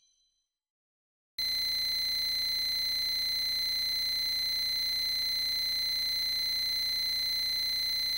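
The last of a chime fades out, and after a short silence a steady, high-pitched electronic tone starts abruptly and holds unchanged at one pitch.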